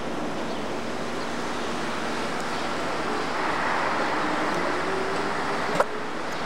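Steady city traffic noise, swelling a little past the middle with a faint rising whine, and a single sharp click near the end.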